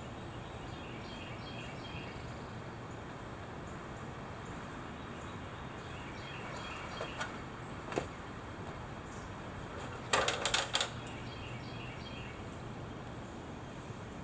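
Steady outdoor background with faint bird chirping, broken by a couple of light clicks and then, about ten seconds in, a quick cluster of sharp knocks, the loudest sound here.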